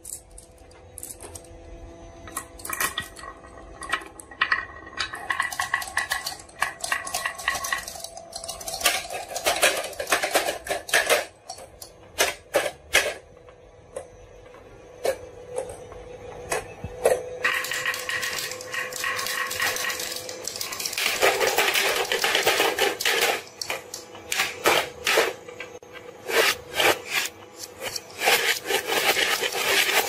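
Glass marbles clacking and rattling as they roll down wooden tracks and drop into a plastic toy board: many quick, sharp clicks, busiest and loudest in the second half.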